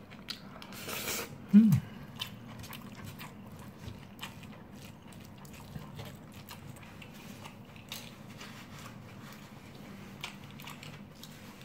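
Someone eating rice: a plastic spoon scrapes and scoops in a styrofoam takeaway box, with chewing and faint scattered clicks. About a second in there is a sharp breath and a short hum.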